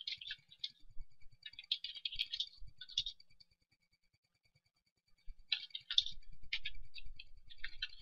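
Typing on a computer keyboard: quick runs of key clicks, with a pause of about two seconds midway before a second run of typing.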